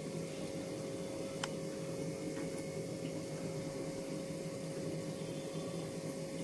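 Steady room hum with a constant mid-pitched tone, and one faint click about a second and a half in.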